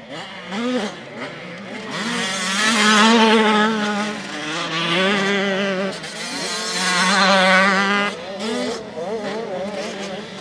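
Motocross motorcycle engines revving as bikes pass one after another over a jump and through a dirt corner, the engine note wavering with the throttle. The sound swells loudest about three, five and seven seconds in.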